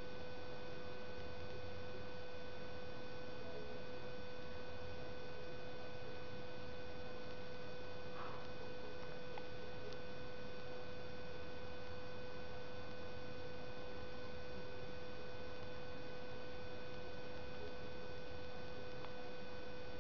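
Steady electrical whine and hiss with no change in level: a constant tone with fainter higher tones above it, over an even background noise. A faint, brief sound comes about eight seconds in.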